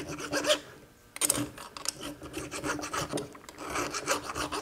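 Hand file scraping back and forth across a steel transmission main shaft in repeated strokes, with a short pause about a second in. It is filing down a raised, smeared lip on the shaft so the stuck gear can slide off.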